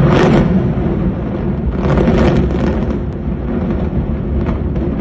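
Controlled demolition of the Supertech twin tower high-rises: the explosive charges going off, starting suddenly and running into a loud, continuous deep rumble as the towers collapse. The rumble swells again about two seconds in.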